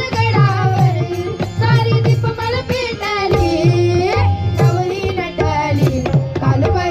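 Mangalashtak wedding-song music: tabla keeping a steady beat under a gliding, wavering melody line.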